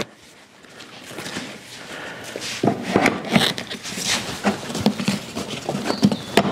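Footsteps, then a canvas-and-leather motorcycle saddlebag being handled and clipped onto its rack mount: irregular knocks, rustles and clicks.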